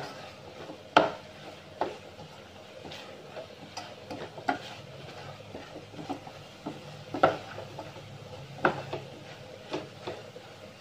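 A wooden spatula stirs and scrapes a thick shredded filling around a stainless steel saucepan, with sharp irregular knocks about once a second as it strikes the pot's side.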